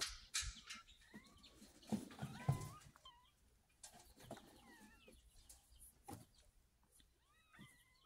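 Young kittens mewing: many short, thin cries that rise and fall in pitch, scattered throughout. There is some rustling and bumping, the loudest a thump about two and a half seconds in.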